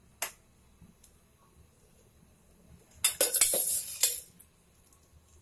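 Metal kitchen utensils clattering and clinking for about a second, about three seconds in, after a single sharp click near the start.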